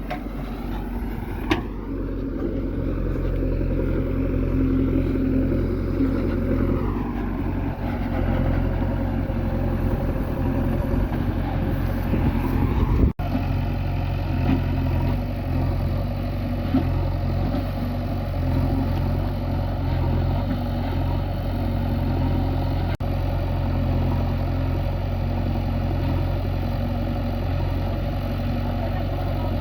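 Heavy diesel engine running steadily. About two seconds in its pitch rises, holding higher until it falls back around seven seconds. Two very short dropouts come near 13 and 23 seconds.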